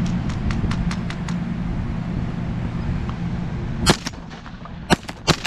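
Three shotgun shots from two hunters firing at pigeons: one about four seconds in, then two more in quick succession a second later. Before them there is a steady low rumble.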